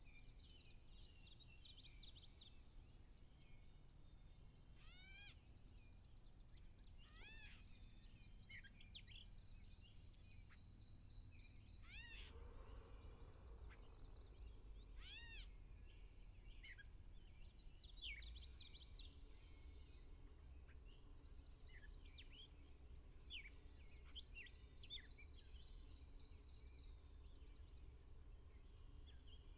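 Faint birdsong: quick high trills and several arched, mewing calls repeated every few seconds, over a low steady rumble of ambient outdoor noise.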